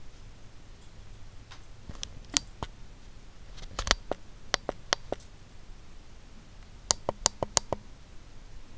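Sharp, brief clicks in three short bursts: a few about two seconds in, a run of five or so around four to five seconds, and a quick run of about six near seven seconds.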